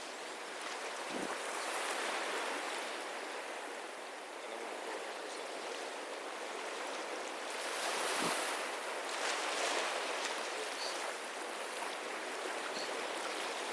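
Sea waves washing onto the shore, a steady wash that swells a little now and then, around two, eight and ten seconds in.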